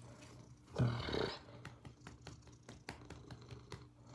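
Domestic cat purring close up: a steady low rumble with one louder swell about a second in, then light clicks and rustles from handling.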